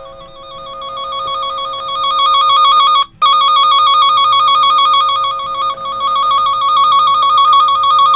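Handheld tone-tracer probe sounding a rapidly warbling electronic tone that grows louder over the first couple of seconds as the probe is worked against the wiring. It cuts out briefly about three seconds in, then comes back loud. A loud tone marks the wire that carries the tone generator's signal.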